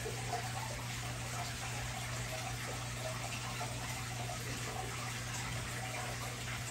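Aquarium water circulating: a steady running and trickling of water, with a low steady hum underneath.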